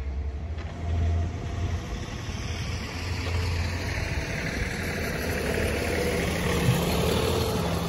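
Road traffic: a passing vehicle, its engine and tyre noise swelling and then fading over a few seconds above a steady low rumble.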